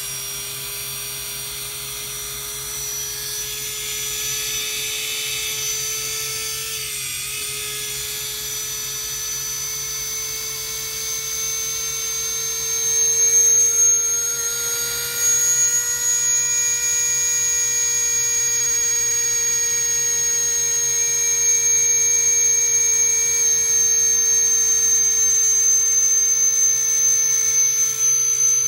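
Walkera F210 racing quadcopter's brushless motors spinning steadily at high speed with a whine that drifts slightly up in pitch and gets louder about halfway through. The motors keep running with the transmitter switched off: the fail-safe is not cutting them.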